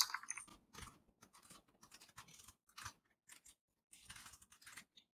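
Faint keystrokes on a computer keyboard: irregular runs of quick key clicks, with a short pause a little before the end.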